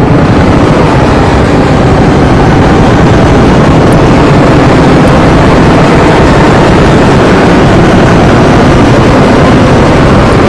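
Harsh noise wall: a very loud, dense, unchanging wash of distorted noise with no pauses, pitch or rhythm.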